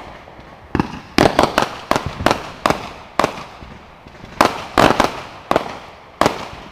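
Aerial fireworks going off: a rapid, irregular string of sharp bangs in clusters, with short lulls between them.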